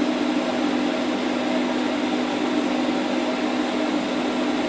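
TIG welder running during a weld bead: a steady electric hum with an even hiss.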